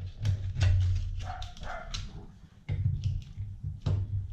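A dog vocalizing briefly, about a second and a half in, over a steady low hum and a few sharp clicks and knocks of parts being handled.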